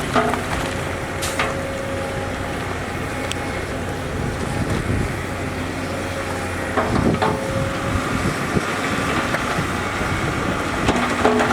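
Diesel engine of heavy construction machinery running steadily, with a few clanks and knocks, the clearest about seven seconds in.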